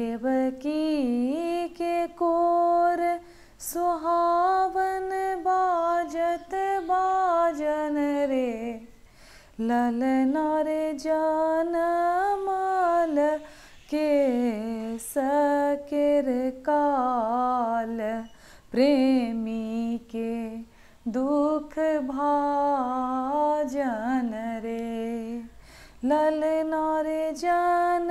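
A woman singing a Maithili sohar, a folk birth song, solo and unaccompanied: long held notes that bend and slide, in phrases of a few seconds with short breaths between them.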